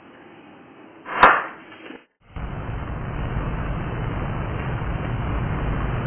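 A quick swish ending in a sharp crack about a second in. After a short break comes a steady rushing noise with a deep rumble.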